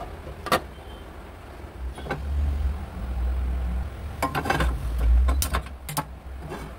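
Cookware being handled: a sharp clink as a glass lid is set on a bowl, then a cluster of knocks and clicks as a metal frying pan is set and shifted on a stovetop, over a steady low rumble.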